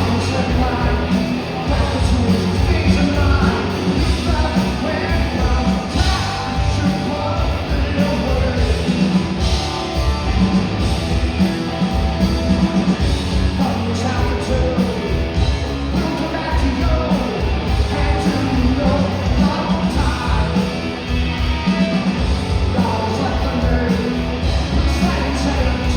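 A live rock band playing a song loudly, with singing over it.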